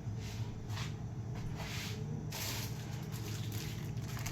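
Soft rustling and handling noises of food packaging being opened, over a steady low hum.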